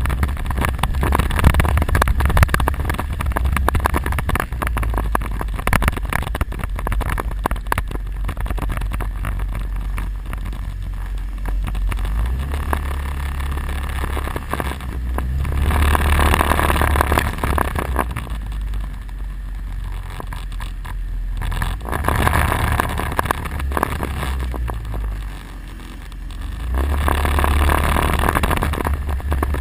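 Quad bike (ATV) engine running close up while riding a rough dirt trail, its note swelling and easing several times with the throttle. Rattling and knocks over the bumpy ground in the first ten seconds or so.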